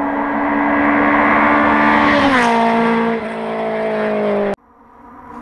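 Rally car engine held at high revs, growing louder as it approaches. Its pitch drops about halfway through and again a second later as it passes. The sound cuts off suddenly near the end.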